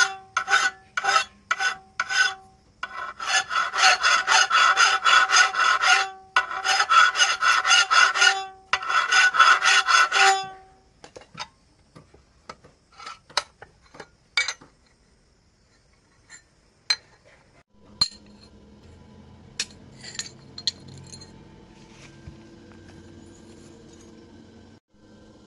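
A hand file scraping a steel blade, with the metal ringing faintly on each stroke. It starts with single strokes about two a second, then runs into three spells of fast back-and-forth filing that stop about ten seconds in. After that come scattered light clicks and taps, and a faint steady hum near the end.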